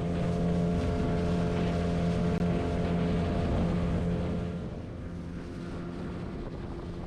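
A boat's motor running steadily, louder for the first four seconds or so and then quieter.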